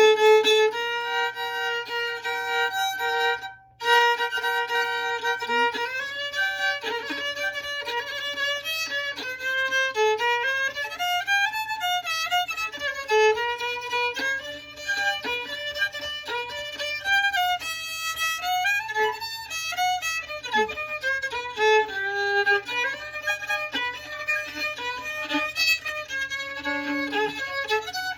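Fiddle playing a fiddle tune in the key of G: long held bowed notes at first, a brief break about four seconds in, then the melody gets going in quick moving notes.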